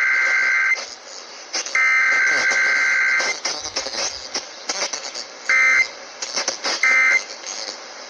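Emergency Alert System SAME data bursts over a radio broadcast: a warbling two-tone digital signal sent as two bursts of about a second and a half, a second apart. After a pause come two short end-of-message bursts about a second apart near the end, and a third begins just as it ends.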